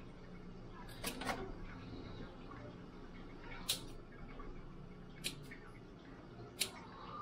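Kitchen scissors snipping through raw shrimp shells: about six short, sharp snips spaced a second or so apart, some in quick pairs, over a faint low steady hum.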